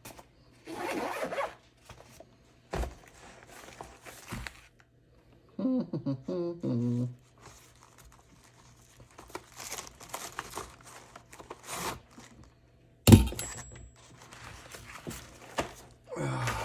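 Handling noises of a bag being rummaged through: a zipper being pulled, rustling and scraping, and a sharp knock about 13 seconds in.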